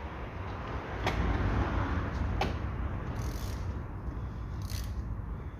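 Ratchet wrench with a 17 mm socket tightening the self-locking nut on a stabilizer-bar link. A few sharp metal clicks and short rasping strokes as the stiff nut is turned.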